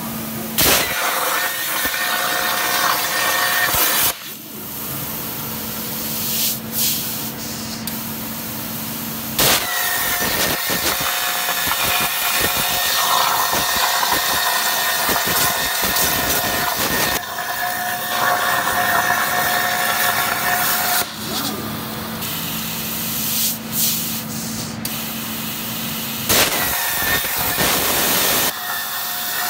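Kjellberg SmartFocus 200 plasma torch cutting steel plate: a loud, steady hiss of the arc and gas with high whining tones over it. The sound breaks off and starts again a few times as one cut ends and the next begins.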